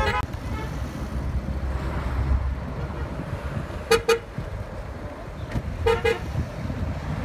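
Car horn sounding two quick double toots, about four seconds in and again two seconds later, over a steady low rumble of traffic.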